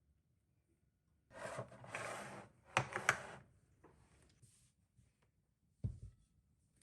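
Household handling sounds: a stretch of rustling about a second in, two sharp clicks, a few faint ticks, and a dull thump near the end.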